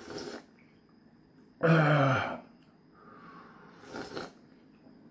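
A man sipping hot ramyeon broth from a bowl held to his mouth, with short slurps at the start and near four seconds. About one and a half seconds in comes a loud throaty exhale whose voice falls in pitch, a throat-clearing 'kha' after a gulp of hot, spicy broth.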